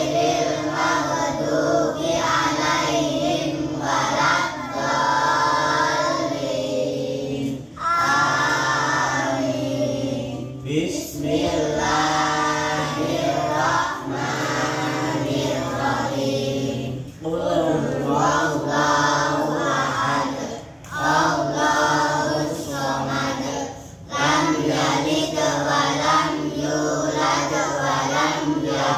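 A group of children reciting Quranic surahs together in unison, chanted in a sing-song tone phrase by phrase, with short pauses for breath between verses.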